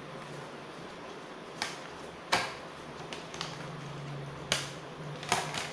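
Headset packaging being handled as the earphones are taken out of their box: several sharp clicks and snaps of card and plastic, the loudest about two and a half seconds in.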